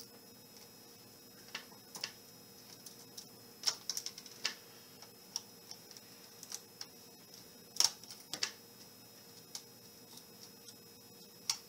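Irregular light clicks and taps of a small screwdriver and metal screws as the screen-mounting screws in a laptop's display lid are undone and lifted out. There are two stronger clicks, about four seconds in and about eight seconds in.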